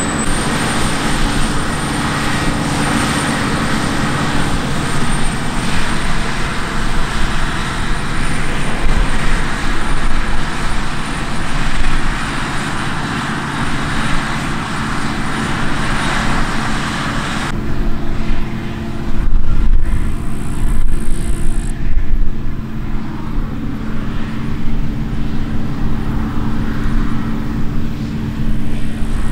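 An engine running steadily; the higher part of the sound drops away abruptly about two-thirds of the way through, leaving the low drone.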